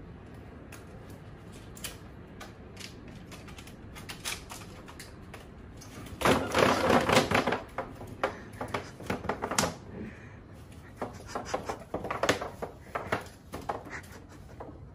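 Woven bamboo tray scraping and clattering on a tiled floor as a puppy moves about beneath it, in a string of light clicks and rattles with a dense, louder flurry about six seconds in.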